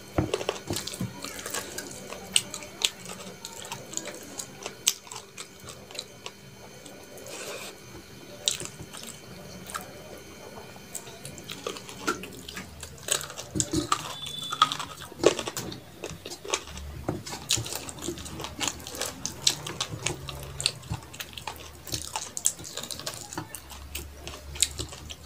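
Close-up wet squelching and clicking of fingers mixing rice with curry gravy on a steel plate, mixed with chewing and lip smacks. Many short, sharp clicks run throughout.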